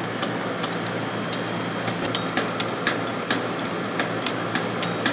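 Condensing unit's compressor running with a steady hum while a wrench clicks over and over on the suction service valve as it is cranked shut in quarter turns. This is the end of a pump-down, with the compressor pulling the system into a vacuum.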